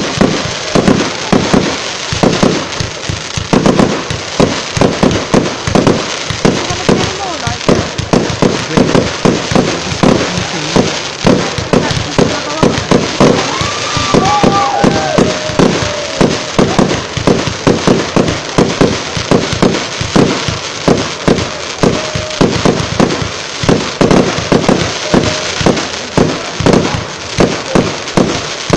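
Fireworks display firing a continuous barrage of bangs, several reports a second without a break.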